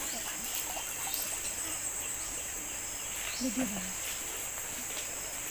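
Steady high-pitched drone of forest insects, with short rising chirps now and then. A brief low voice-like sound comes a little past halfway.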